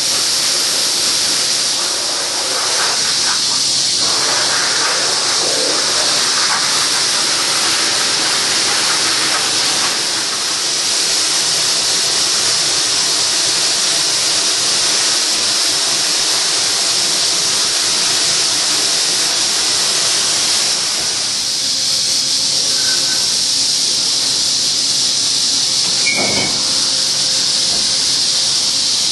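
Makino horizontal machining center milling an extrusion die with a small ball endmill: a loud, steady hiss of cutting and coolant, with a short high squeal about 26 seconds in.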